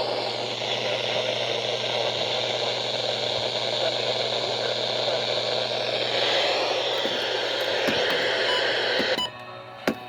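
Radio static: a steady loud hiss from a receiver, cutting off abruptly near the end.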